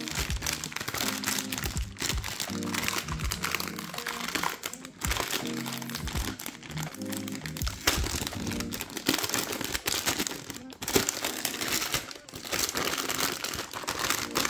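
A metallised anti-static bag crinkling and crackling as a motherboard is pulled out of it by hand. Background music plays underneath.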